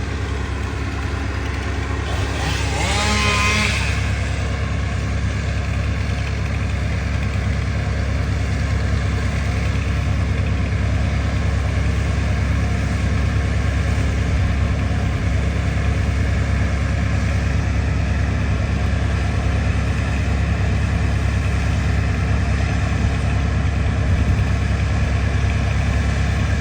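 A motor engine idling steadily with a low, constant hum. About three seconds in there is a brief higher, wavering sound.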